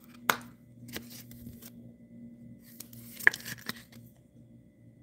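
Trading cards and thin plastic card sleeves being handled: light rustling with a few short clicks, the sharpest about three seconds in, as a card is slid into a clear sleeve. A faint low hum runs underneath.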